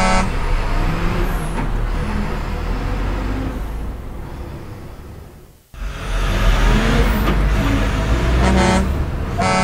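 Cartoon fire truck sound effects: a truck engine running that fades as the truck drives away and cuts out a little past halfway, then comes back loud as another truck drives in. A short horn honk sounds at the start and twice more near the end.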